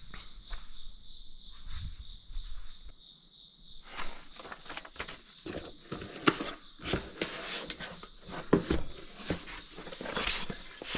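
Crickets chirping steadily, with irregular clicks, knocks and rustling from handling or footsteps starting about four seconds in.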